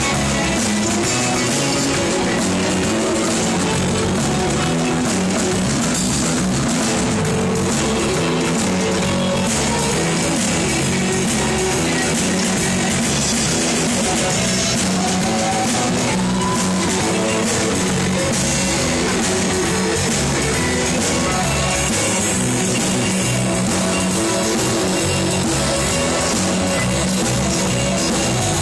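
Rock music with a guitar and a drum kit playing loud and without a break, the drums struck with sticks.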